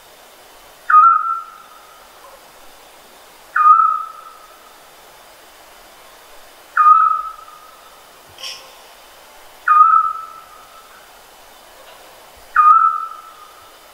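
Scops owl calling: a single short whistled note, repeated five times at steady intervals of about three seconds.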